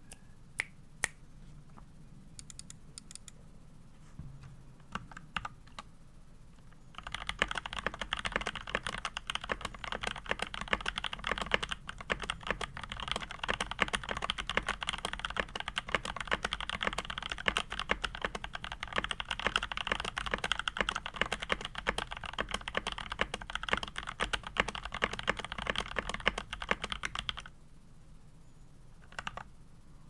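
Keychron K2 v2 mechanical keyboard in stock form (Gateron Brown switches, plate-mounted stabilizers, ABS keycaps, no case foam) being typed on. A few scattered single keystrokes, then fast continuous typing from about seven seconds in, stopping a couple of seconds before the end, with a few more keystrokes after.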